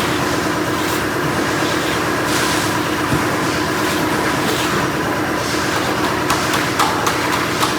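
A machine's engine running steadily with a constant hum, with a few sharp clicks near the end.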